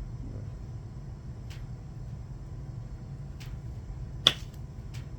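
A few faint clicks and one sharp plastic click about four seconds in as a USB Type-C charging cable and its plastic connector tip are handled, over a steady low hum.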